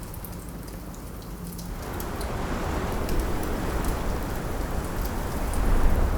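Wood fire crackling with scattered sharp pops, over a rushing winter wind that swells up about two seconds in and stays loud.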